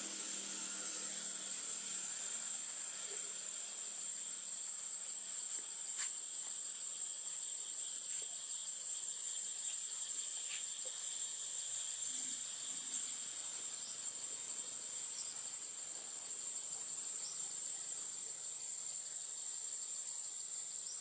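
Insects buzzing in a steady, high-pitched drone, with a few faint clicks and short chirps over it.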